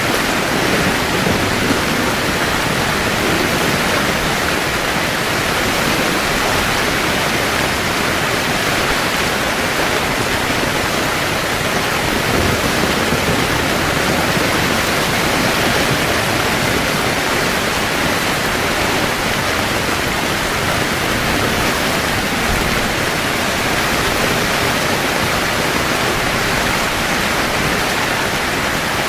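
Heavy rain falling steadily on a camping tent, a dense, even hiss with no let-up.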